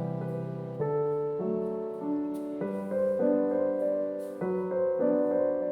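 Soft piano background music: sustained chords that change about every half second to second.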